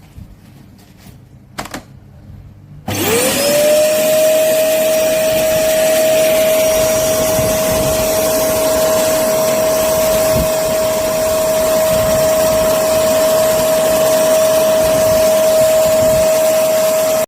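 A PowerPac bagless cyclone vacuum cleaner is switched on after a few clicks. Its motor spins up in a quick rising whine, then runs steadily with a high steady whine over rushing air.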